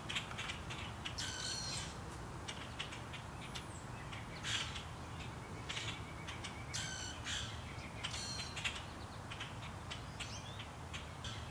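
Birds calling in spring woodland: about four harsh, hoarse calls a couple of seconds apart, with scattered short chirps in between, over a low steady rumble.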